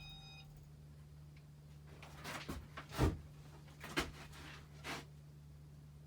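Casablanca Panama II ceiling fan motor running steadily on its second speed with a low hum. A brief high tone sounds right at the start, and a few knocks come between about two and five seconds in, the loudest about three seconds in.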